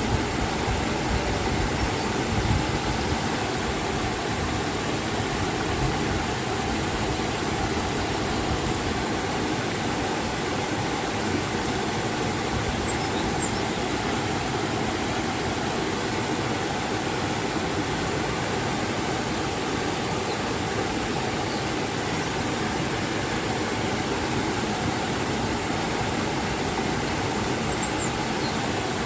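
River and waterfall water rushing with a steady, even roar, unchanging throughout.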